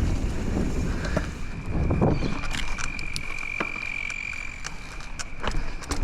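Mountain bike being ridden: wind on the microphone, low rumble and scattered clicks and rattles from the bike. A steady high-pitched tone joins about a second and a half in.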